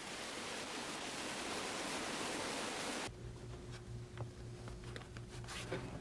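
Waterfall: an even rush of falling water. About three seconds in it cuts off to a quiet background with a low hum and soft rustles and clicks of cloth being handled.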